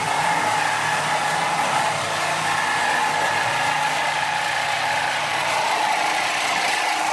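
Handheld plasma cutter cutting through a steel car frame: a steady loud hiss with a constant whine over it.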